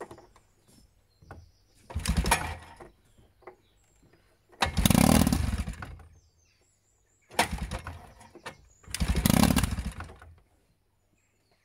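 1974 Evinrude 18 hp Fastwin two-stroke twin outboard, out of the water, pull-started and firing into short runs of about a second four times over, the second run the loudest. It fires on just what little fuel gets to the carburettors, because a cracked plastic fuel-line fitting keeps the primer bulb from being pumped.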